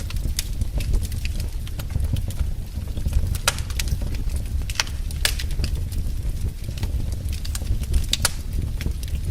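Wood fire in a fireplace crackling, with irregular sharp pops and snaps over a steady low rumble of burning.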